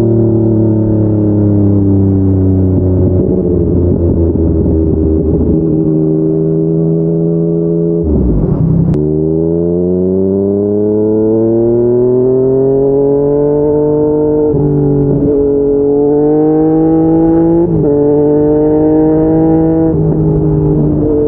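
Yamaha MT-09's three-cylinder engine with an aftermarket slip-on exhaust, its pitch falling as the bike slows for several seconds. After a short break about eight seconds in, it accelerates hard, the pitch rising through several quick upshifts.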